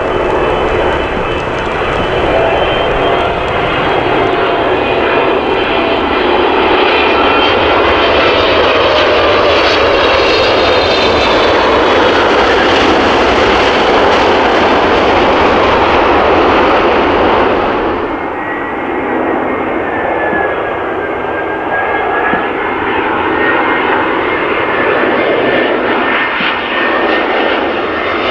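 Boeing 777-300ER jet engines whining loudly as the airliner passes close on its landing, the engine tones sliding down in pitch as it goes by. About eighteen seconds in, this cuts to a quieter, steadier jet whine from an Airbus A320 on final approach.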